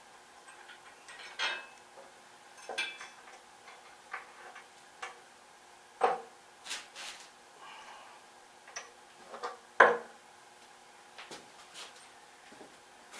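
Irregular metallic clinks and knocks of metal hardware and parts being handled and fitted together, the loudest about six and ten seconds in.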